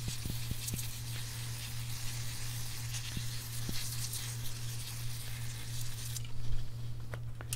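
Brake cleaner spraying onto a camshaft from an electric brake-clean sprayer: a steady hiss that stops about six seconds in, over a steady low hum. A few small clicks follow near the end.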